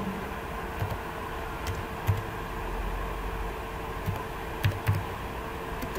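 Computer keyboard being typed on: a handful of scattered, irregular key clicks over a steady faint hum.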